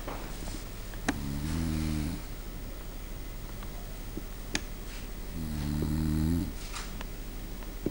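A person snoring in slow, even breaths: two long snores about four seconds apart, each lasting about a second, with a few faint sharp clicks between them.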